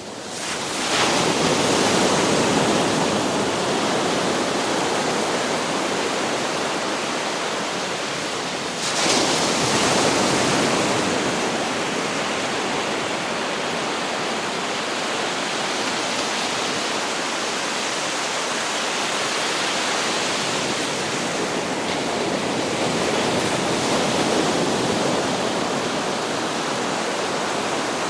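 Sea waves breaking and washing up on a beach: a continuous rushing wash that fades in over the first second, with a louder wave surging about nine seconds in.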